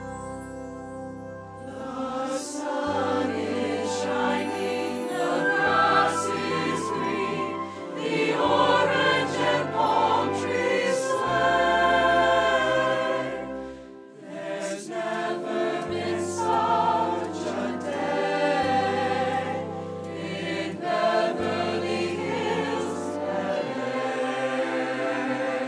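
A mixed choir singing with instrumental accompaniment. Low held notes change about every two seconds under the voices, and the sound dips briefly about halfway through.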